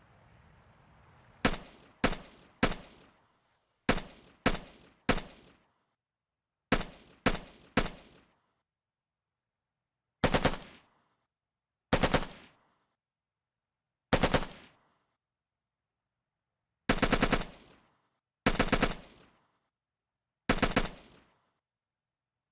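AKS-74U assault rifle firing: three sets of three single shots, then three short bursts and three longer automatic bursts, each ending in clean silence.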